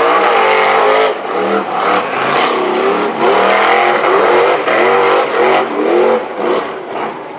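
Rock bouncer buggy's engine revving hard in repeated rising and falling surges as it climbs a steep dirt hill, fading near the end as it reaches the top.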